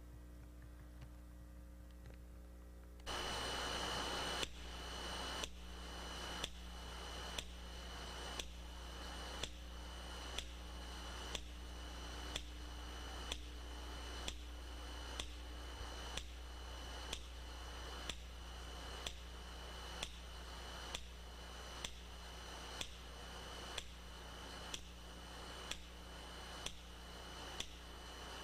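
Low steady electrical hum, then about three seconds in a burst of hiss and a regular ticking pulse about once a second, each tick carrying a short high ping: an electronic effect or soundtrack under the closing titles.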